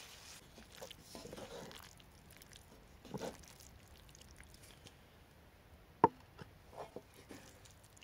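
Wooden spoon stirring creamy carbonara pasta in a cast-iron skillet: soft wet squishing and scraping. A sharp knock comes about six seconds in, followed by a few lighter clicks.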